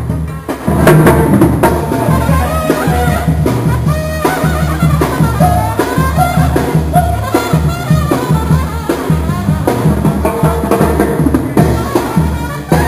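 Banda sinaloense playing live: trumpets and sousaphone over drums, with a steady pulsing bass line from the tuba.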